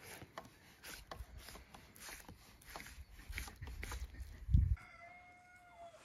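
Scattered light clicks and knocks, then a single heavy low thump about four and a half seconds in, followed near the end by a rooster crowing in one long call.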